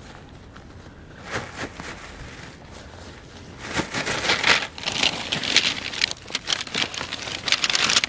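Tent fabric rustling and crinkling as a rolled-up tent is unrolled across a groundsheet. It gets much louder and denser about four seconds in.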